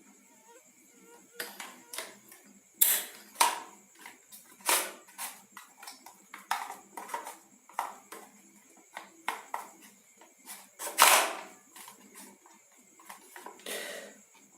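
Irregular sharp plastic clicks and light knocks from handling an RJ45-terminated network cable and a cable tester, the loudest about three seconds in and again near eleven seconds.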